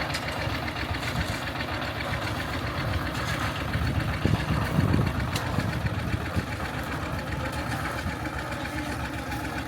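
An engine running steadily, with irregular low thumps.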